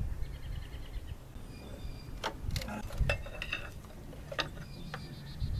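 Hand tools clicking and clinking against metal parts under the hood of a car: six or seven sharp, irregular taps, some with a short metallic ring, as the heat sensor connector is worked loose.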